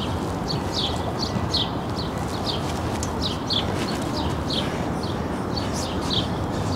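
Small birds chirping: short, high, down-sliding chirps, two or three a second, over a steady low rumble of outdoor background noise.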